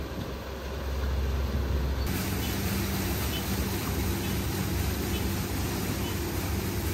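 Small rice combine harvester's engine running with a low rumble. About two seconds in, this changes abruptly to a slightly louder, steady machine hum with a low drone.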